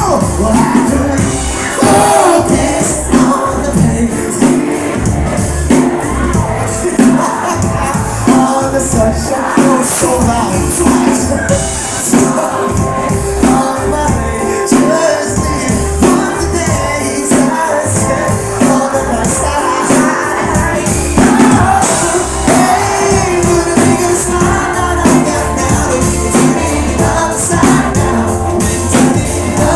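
Live rock band playing loud: drums keeping a steady beat under electric guitars, with a lead singer over the top.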